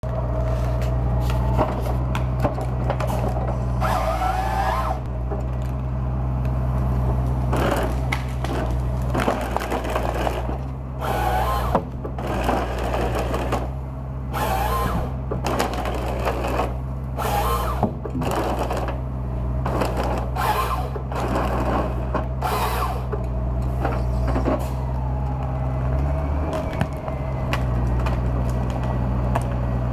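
WF Trac 2460 forestry tractor's engine running steadily while its Log Max 928 harvester head fells and processes a tree. Repeated bursts of wood cracking and snapping come as the stem is fed through the head and its limbs are stripped off. The engine note dips briefly near the end.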